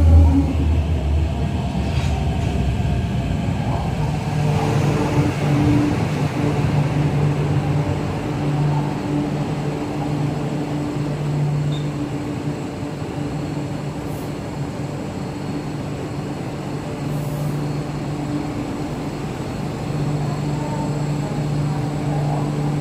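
MTR Q-train electric metro train: a heavy low rumble in the first second or so, then a steady low hum with a couple of held tones that fade in and out.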